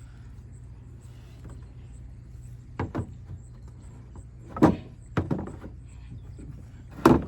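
A series of knocks and clunks of parts being handled and set down, about five in all, the loudest near the end, over a steady low hum.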